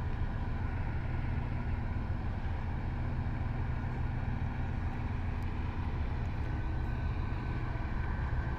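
Tugboat's diesel engine running under heavy load as it tows a grounded coal barge: a steady low drone with faint whining tones above it, a higher tone joining near the end.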